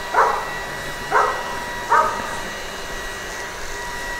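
A dog barking three times in quick succession, about a second apart, in the first half, over a faint steady background tone.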